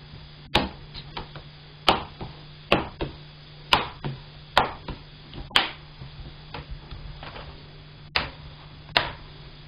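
Plastic display bezel of a Dell Latitude E7270 laptop snapping into place on the screen lid as fingers press along its edges: about eight sharp plastic clicks, roughly a second apart, with a longer pause near the end.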